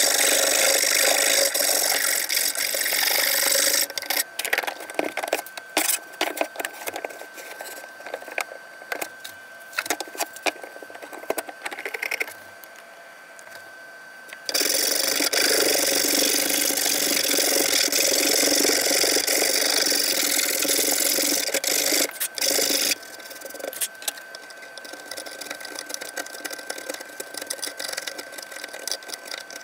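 Hand file and steel scraper working a cypress board around a knot: long stretches of steady rasping, broken by short separate scraping strokes and pauses.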